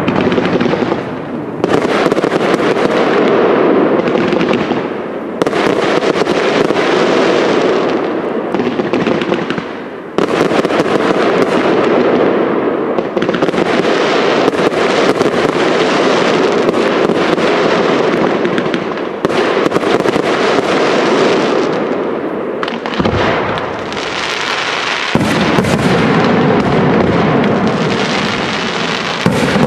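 Aerial fireworks display: a dense, nearly unbroken barrage of shells launching and bursting with heavy crackling, easing briefly about ten seconds in.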